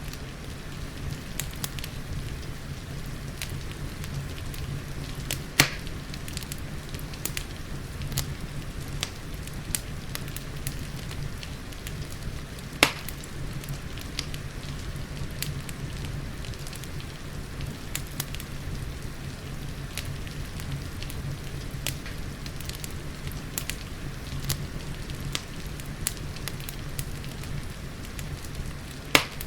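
Wood fire crackling over steady rain: a constant patter with frequent small crackles and three loud sharp pops, about five seconds in, near the middle and at the very end.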